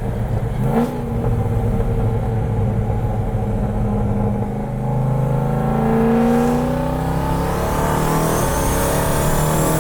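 Twin-turbocharged Jeep SRT V8 running steadily, then accelerating hard from about five seconds in. The engine pitch climbs and a thin turbo whistle rises above it.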